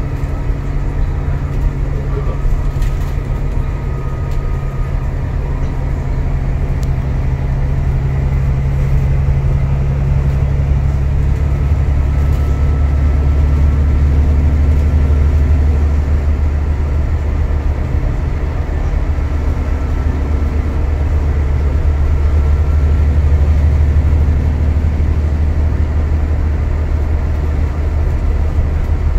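Alexander Dennis Enviro400 MMC double-deck bus cruising at speed, heard from inside the passenger deck: a steady low drone of diesel engine and road noise. The drone drops a little in pitch and grows slightly louder about a third of the way in.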